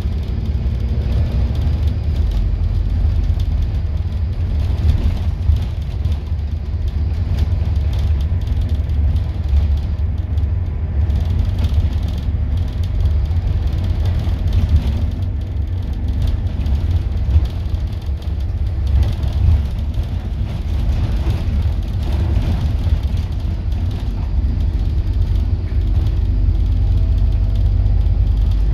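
Scania N230UD Enviro400 double-decker bus running, heard from the upper deck: a steady deep rumble of engine and running gear with a faint hum above it.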